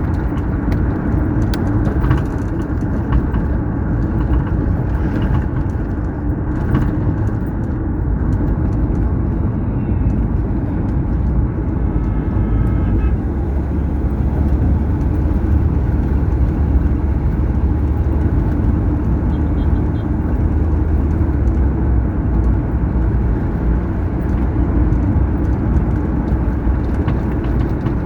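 Steady low rumble of a car driving at road speed on a highway: engine and tyre noise.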